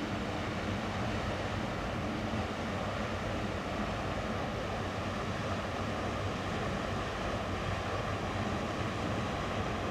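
Steady drone of a passing inland tanker ship's diesel engine, with water washing along its hull.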